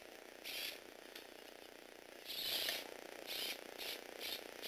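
Small Tomy Aero Spider electric motor driving Lego Technic gears, whirring in a series of short bursts of about a third of a second each as it is switched on and off by remote, with one longer burst about two seconds in.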